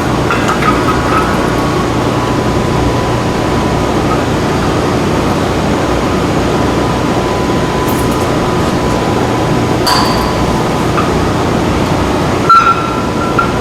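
Steady loud background noise with a faint steady tone, broken by a few sharp metal clinks and knocks, the loudest near the end, as driveshaft parts are handled and fitted back together.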